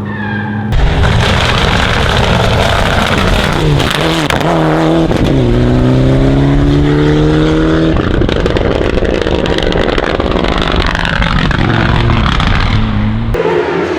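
Competition car engine at high revs, accelerating hard, its pitch rising through the gears and dropping between them.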